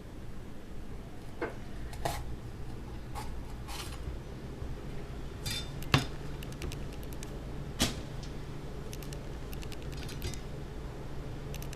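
Kitchen knife clicking and tapping against a cutting board as a bell pepper is cut open around its top, with two louder knocks in the second half. A steady low hum runs underneath.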